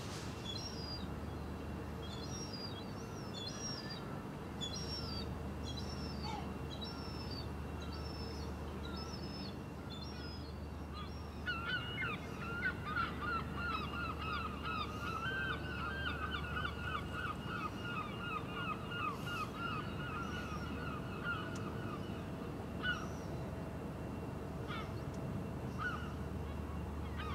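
Birds calling over a steady low hum. Quick high chirps repeat through the first ten seconds; then, about eleven seconds in, a loud run of rapidly repeated calls goes on for about ten seconds before stopping.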